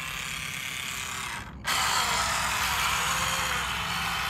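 Small brushed electric motor and propeller of a cheap RC boat, pushed on a 2S battery, whirring at speed. About a second and a half in it drops out briefly, then comes back louder at full throttle. It runs unevenly and keeps the boat from planing, which the owner calls "not happy".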